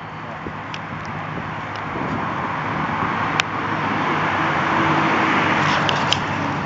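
Motor vehicle running: a steady rushing noise over a low hum that swells over the first few seconds and then holds, with a few faint clicks.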